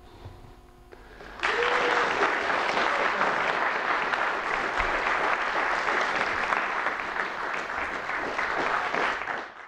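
Audience applauding, breaking out about a second and a half in and holding steady until it fades away.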